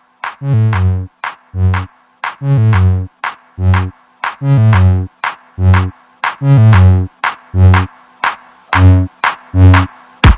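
Electronic background music with a drum-machine beat and short synth stabs.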